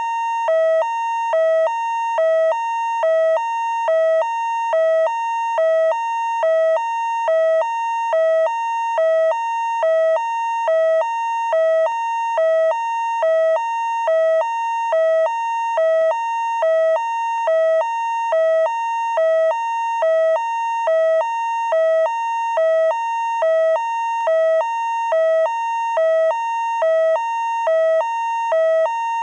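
Fire truck two-tone siren: two notes, low and high, alternate steadily in a hi-lo pattern, a little more than one low-high pair per second, with no change in pitch or loudness.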